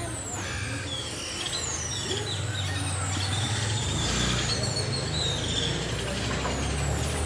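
Street traffic: a heavy vehicle's engine running with a low rumble that grows louder about four seconds in, over many short, high-pitched chirps that fall in pitch.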